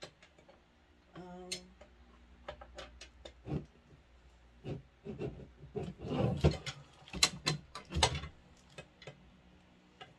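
Knocks, clicks and rubbing of cup turner parts being handled and fitted together, thickest about six to eight seconds in.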